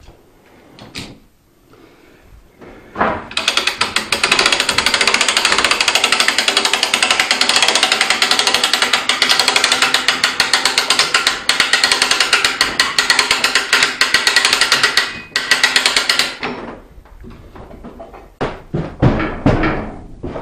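Hand-crank winch on a shop-crane boom being cranked, its ratchet clicking rapidly and loudly as it winds in the cable and lifts a rooftop tent of about 200 pounds. The cranking starts about three seconds in, breaks off briefly, and stops a few seconds before the end, followed by a few knocks.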